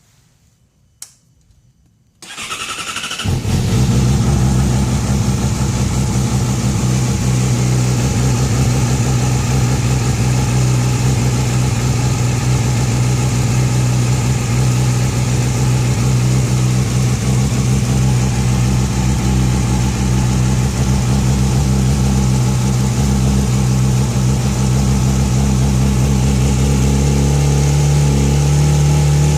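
A click, then a 2009 Yamaha YZF-R6's inline-four engine cranked by its electric starter, catching about three seconds in and settling into a steady, even idle.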